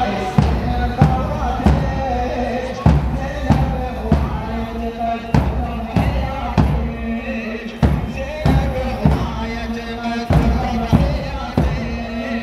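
Muharram mourning lament: a voice chanting a lament, with a large bass drum beating a steady slow rhythm, a little under two beats a second.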